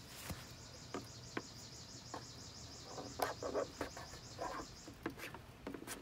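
Faint insect trill outdoors, a high, evenly pulsing chirr that stops about five seconds in, with a few light clicks and short scratchy handling sounds.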